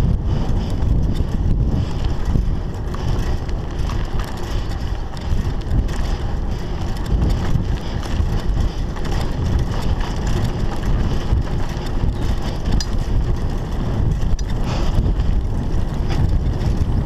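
Wind rushing over the camera microphone as a Scott Scale 960 mountain bike is ridden fast along a dirt double-track. Under it are a steady tyre rumble and frequent small rattles and clicks from the bike.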